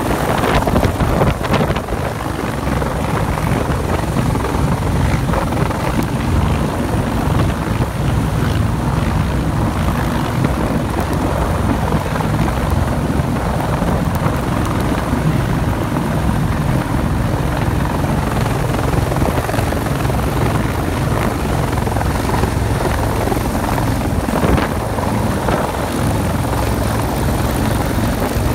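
Rescue helicopter hovering low overhead during a cable hoist: loud, steady rotor beat and turbine engine noise.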